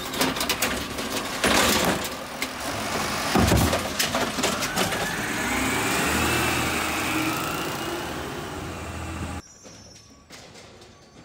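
Automated side-loader garbage truck emptying a wheeled trash cart: a run of knocks and bangs as the arm shakes the cart out over the hopper and brings it back down, over the diesel engine's low running. A rising whine follows as the truck's engine and hydraulics work. About nine seconds in the sound drops suddenly to much quieter street ambience.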